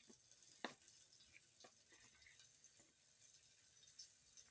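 Near silence with a few faint ticks and one sharp click a little over half a second in, from a hand coating a piece of food in a plastic bowl of flour.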